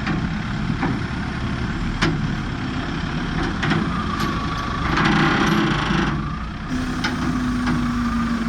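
A motor running steadily, with a few sharp knocks and a brief louder rush of noise about five seconds in.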